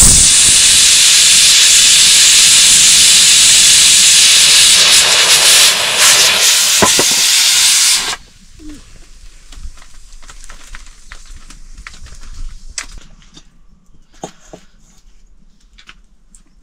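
Loud, steady hissing from food cooking on the fire, cutting off suddenly about eight seconds in. After that, faint scattered clicks and knocks.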